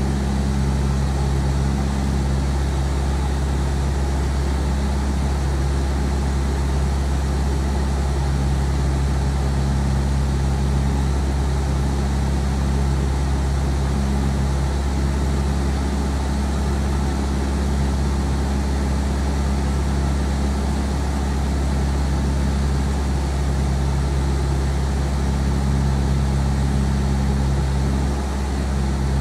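Single-engine light aircraft in cruise heard from inside the cockpit: the engine and propeller give a steady, deep drone with an even hum.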